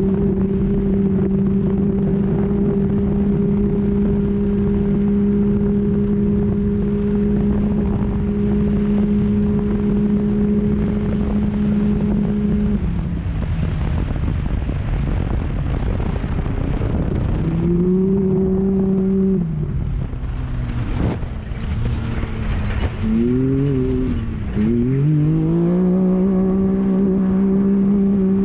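Off-road race vehicle's engine held at a steady high pitch at full throttle for about twelve seconds over a constant noisy rush. It then drops away, rises and falls once, stutters through a few quick dips and climbs, and settles back to the same steady full-throttle pitch near the end.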